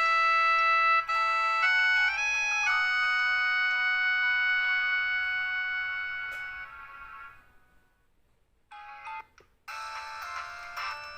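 Samsung SCH-F309 phone's ringtones played from its MIDI synth: sustained keyboard-like chords that step through a few changes in the first three seconds, then fade out about seven seconds in. After a moment's pause comes a short run of notes, and another ringtone begins near the end.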